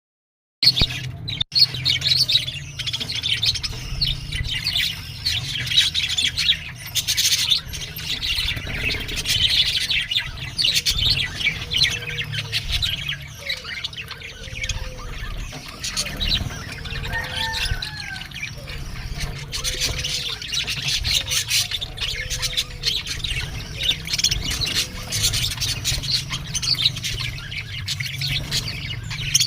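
Budgerigars chattering and chirping continuously in a busy, overlapping stream of high twitters and squawks, over a steady low hum.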